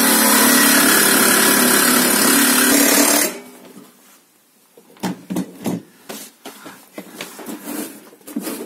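Electric jigsaw cutting through thick stainless-steel sheet, a loud steady buzz that stops abruptly about three seconds in as the rectangular cut-out is finished. After that come scattered light knocks and clicks of the metal box being handled.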